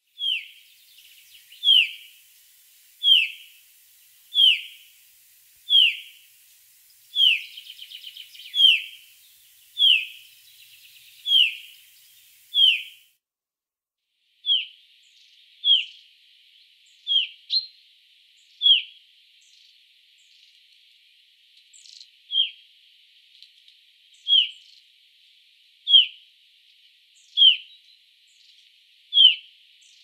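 Chaffinch of the Black Sea subspecies repeating a single short call note that drops in pitch, about one note every one and a half seconds. After a brief gap about 13 seconds in, the calls continue in a different recording, slightly less regular.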